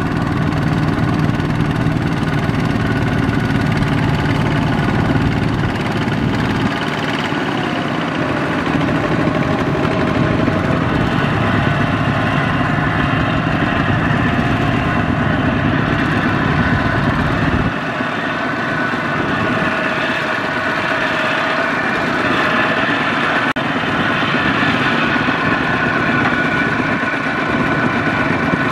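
Horizontal single-cylinder diesel engines of two-wheel walking tractors running steadily while hauling loaded rice trailers through flooded paddy mud. The low rumble changes abruptly twice, about a quarter of the way in and past halfway.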